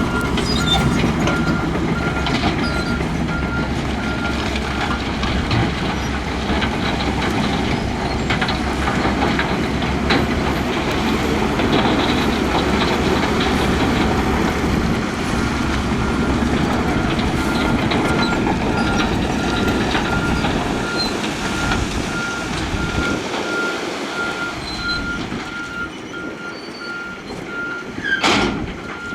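Heavy diesel earthmoving machine running, with its reversing alarm sounding a steady series of beeps throughout. The engine noise dies down over the last several seconds, and a sharp knock comes near the end.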